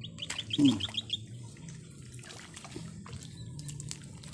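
Pond water splashing and dripping, loudest in one sudden splash about half a second in, with scattered drips after it. A quick run of high chirps sounds over the first second.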